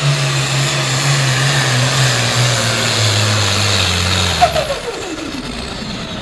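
Farmall 1206 turbo diesel pulling tractor running flat out under the sled's load, its note sagging in pitch about three seconds in as it bogs down. A sharp pop comes at about four and a half seconds, and the engine and turbo then wind down in a falling whine as the pull ends.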